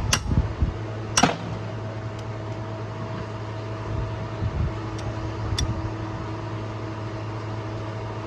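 Steady mechanical hum, with two sharp metallic knocks within the first second and a half and a couple of faint ticks later on.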